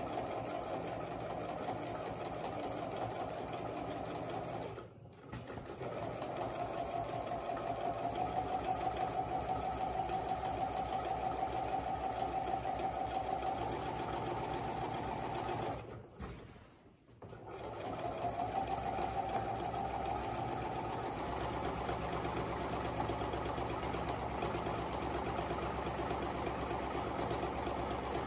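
Pfaff electric sewing machine stitching a long straight seam through fabric at a steady speed. It stops briefly twice, about five seconds in and about sixteen seconds in, and each time its motor whine rises again as it starts back up.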